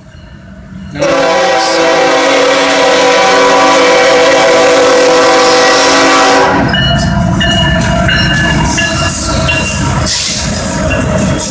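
CSX diesel freight locomotives: the horn sounds one long blast starting about a second in and holding for about five and a half seconds, then the lead locomotives pass close by with a loud rumble of engines and wheels on the rails.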